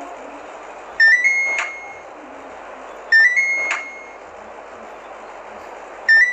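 Beko air conditioner beeping a short rising three-note tune that ends on a held tone, three times about two to three seconds apart, over the steady hiss of its running fan.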